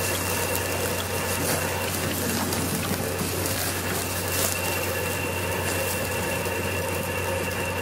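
Steady electric motor hum of an industrial paper-cutting guillotine running, a low drone with a few faint high whining tones over it.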